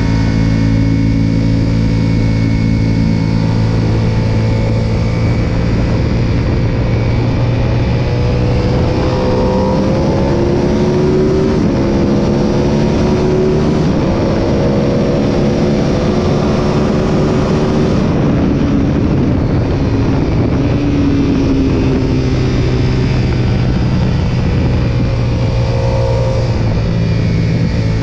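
Sportbike engine running hard on a race track with constant wind rush. It holds a steady note through a corner, then climbs in pitch in several rising pulls through the gears down the straight, and drops back as the bike slows for the next corner.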